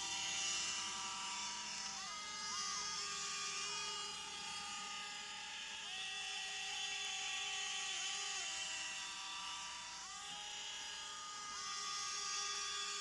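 Whine of the small electric motor on a homemade RC model boat, driven by parts from an old RC airplane. The pitch steps up and down several times as the throttle is opened and eased off while the boat runs on the water.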